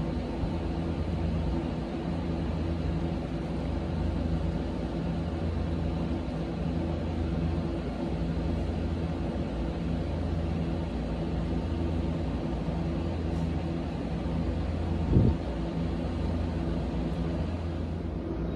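A steady mechanical hum at a constant pitch, with a low rumble beneath it, and one short knock about fifteen seconds in.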